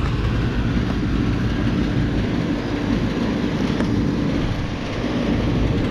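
Commercial packaged air conditioners running: a steady hum of condenser fans and compressors, with a low drone and a constant mid-pitched tone.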